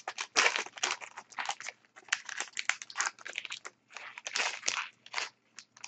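Foil wrapper of a trading-card pack being torn open and crinkled, in a run of irregular crackling rustles.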